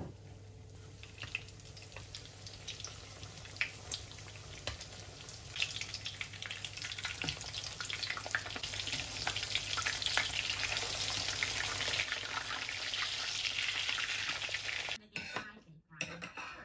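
Breaded pork loin cutlets (tonkatsu) shallow-frying in oil in a frying pan: a crackling sizzle with many small pops, growing louder over the first several seconds. It cuts off suddenly about a second and a half before the end.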